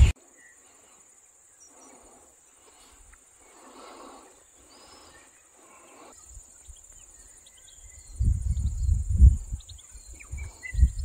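Steady high chirring of insects throughout, with soft swishing footsteps through long grass in the first few seconds. From about eight seconds in, gusts of wind buffet the microphone and become the loudest sound, with a few short bird chirps.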